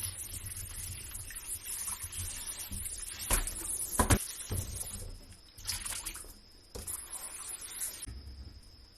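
Water running from a kitchen tap, with a couple of sharp knocks about four seconds in. After the middle the flow breaks into short separate spurts.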